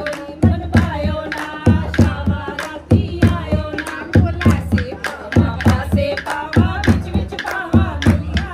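A group of women singing to a dholak beaten by hand in a steady rhythm, with hand-clapping.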